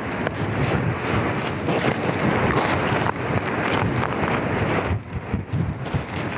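Strong gale-force wind of about 17 metres per second blasting the microphone: a loud, rushing noise that rises and falls in gusts and eases briefly about five seconds in.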